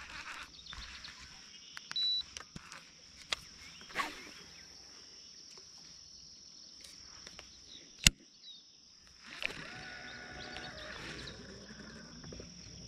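Quiet outdoor ambience with a steady high-pitched drone, broken by scattered sharp clicks and knocks of fishing tackle being handled; the sharpest click comes about eight seconds in.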